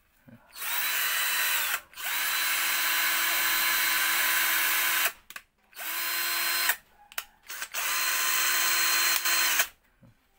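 Bull 20-volt cordless drill run with no load four times, its motor giving a steady whine. Each run spins up and winds down; the first and third are short bursts and the second and fourth last a few seconds. The drill is being test-run for speed.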